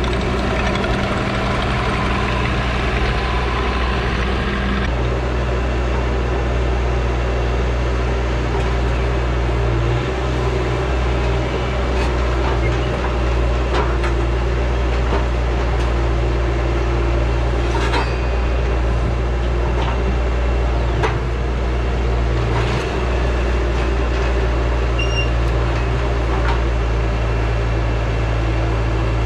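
Bobcat T595 compact track loader's diesel engine running steadily. Its sound changes about five seconds in, and after that it idles low and even, with a few light knocks.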